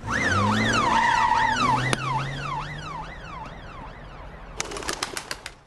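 Police van siren sounding in fast up-and-down sweeps over its engine pulling away, fading over about four seconds. Near the end, a short rattle of rapid clicks.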